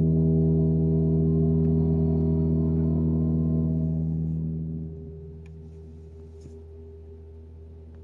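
Heat pump and climate system of a 2021 Toyota RAV4 Prime humming steadily with one clear pitch, then winding down and fading about five seconds in as the car powers off, leaving a faint low hum.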